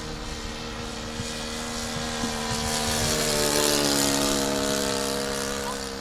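Engine and propeller of a Nieuport 28 RC scale model plane in flight, a steady drone that grows louder as it passes, peaks a little past the middle, then fades while dropping slightly in pitch.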